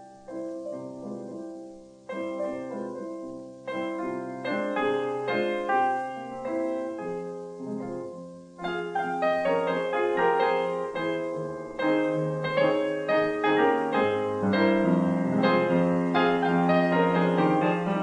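Background piano music, solo and gentle, growing fuller and louder about halfway through.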